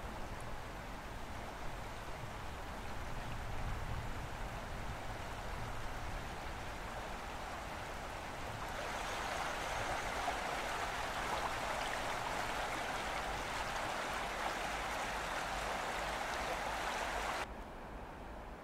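A soft, steady hiss, then about nine seconds in the even rush of a shallow stream running over rock, which cuts off abruptly near the end.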